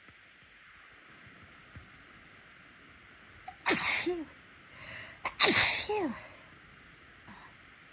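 A woman sneezing twice, about two seconds apart, the second sneeze the louder. Each is a sudden burst ending in a falling voice.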